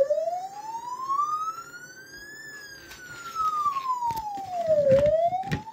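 Premier Hazard (Code 3) Sonic 9004 siren amplifier sounding its wail tone through a 100-watt siren speaker muffled under towels in a plastic box. The pitch rises slowly, falls back, and begins rising again near the end, after a click at the start as the trigger wire is touched to battery positive.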